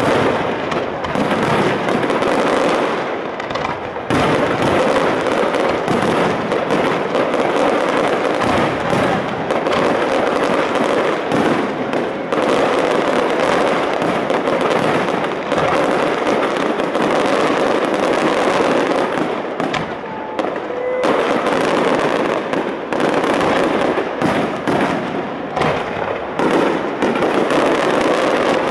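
Fireworks display: a dense, continuous barrage of aerial shell bursts and crackling. There are brief lulls about three seconds in and again around twenty seconds.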